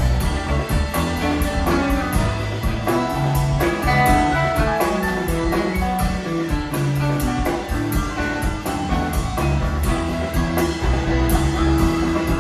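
Live rock band playing an instrumental passage: electric guitar, electric bass, keyboards and a drum kit with steady cymbal strokes, with a harmonica playing over the band.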